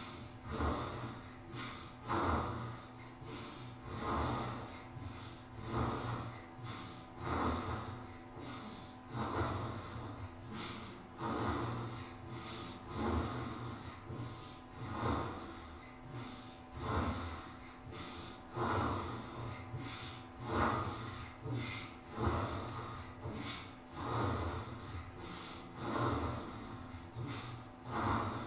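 Newborn baby snoring while asleep, one breath roughly every two seconds in a steady rhythm.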